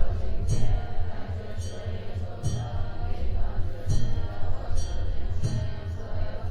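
Buddhist nuns chanting a mantra together, with a short high percussive strike recurring about once a second.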